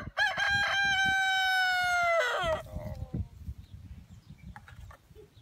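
A rooster crowing once: a long, held call of about two and a half seconds that drops in pitch at the end.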